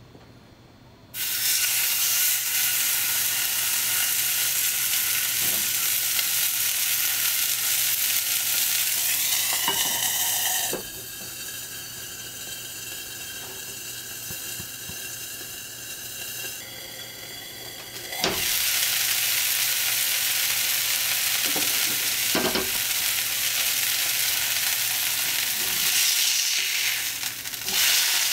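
Hamburger steak patty sizzling in a hot cast-iron skillet: a loud sizzle starts about a second in, turns to a quieter, muffled hiss for several seconds while a lid covers the pan to steam-cook it, then comes back loud.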